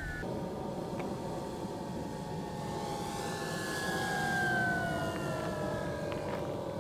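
Yak 54 RC model airplane's motor and propeller droning as the plane flies low past, the pitch gliding slowly down and loudest about four and a half seconds in.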